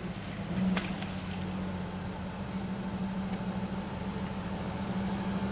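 A 4x4's engine running steadily at idle, with one short click about a second in.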